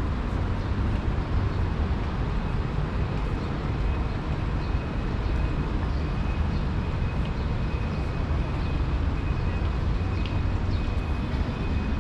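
City street ambience: a steady low rumble of road traffic. A faint, thin, high tone runs steadily from about two seconds in.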